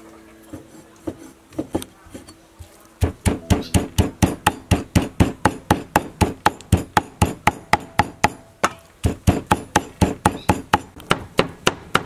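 Cleaver chopping raw pork into mince on a thick round wooden chopping board: a few light taps, then about three seconds in a steady run of rapid knocks, about four a second.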